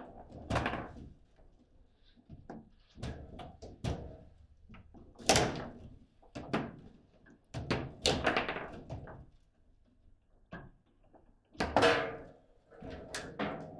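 Table football game in play: sharp, irregular knocks and clacks as the players' rod-mounted men strike the ball, rods bang against the table and the ball hits the walls. The hardest knocks come about five seconds in and again near twelve seconds.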